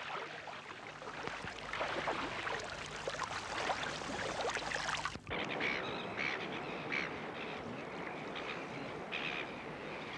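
Water splashing and sloshing, then after a sudden cut about halfway through, gulls calling in short repeated cries over lapping water.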